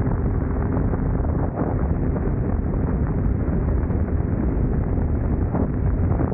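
Wind rushing and buffeting over the microphone of a moving BMW K1600 GTL motorcycle, with its inline-six engine running underneath.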